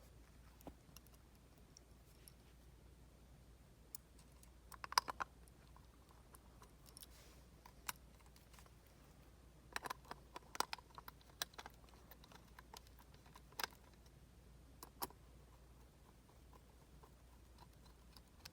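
Scattered small clicks and taps of a screwdriver and plastic dome-camera parts being handled as the screws are tightened down. A quick cluster of clicks comes about five seconds in and another about ten seconds in, with a few single clicks after.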